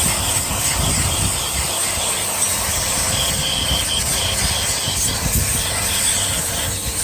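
Loud, steady hiss of pressurised gas rushing out of the split air conditioner's refrigerant pipework. It starts abruptly and cuts off about seven seconds later, over a low hum.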